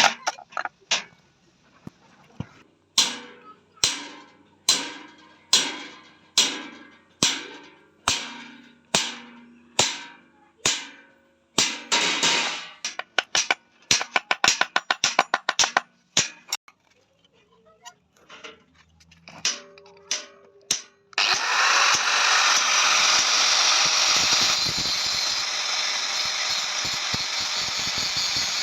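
Hammer blows on metal, each one ringing, about one a second, then a quicker run of strikes and a few spaced blows. From about three-quarters of the way in, a loud steady rushing machine noise takes over.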